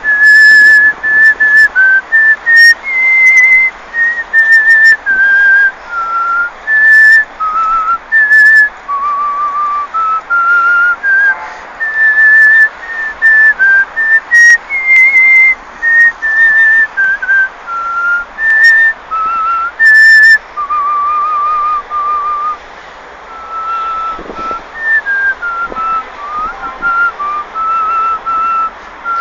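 A man whistling a tune with his lips. It is a clear single line of notes that steps up and down in phrases, with a slight quaver on the longer held notes and short breaks for breath.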